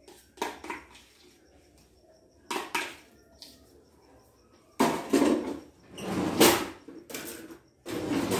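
A spatula scraping and knocking against a bowl and an aluminium baking pan, in a run of separate clatters that grow longer and louder from about five seconds in, as mashed potato is spooned on as a lasagna layer.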